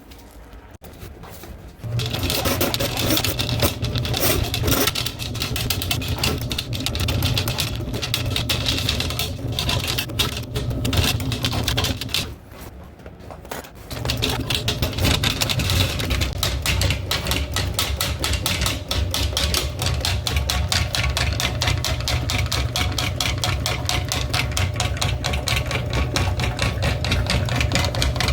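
Electric drain-cleaning machine running, its spinning cable rattling fast as it is fed through the toilet flange into the drain line to clear a soft blockage from wipes. It starts about two seconds in, stops briefly about twelve seconds in, and starts again a couple of seconds later.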